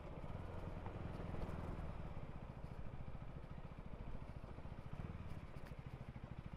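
KTM Duke 390's single-cylinder engine idling with a quiet, even putter.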